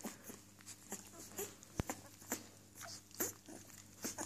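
Newborn puppies squeaking and whimpering faintly in short, scattered calls.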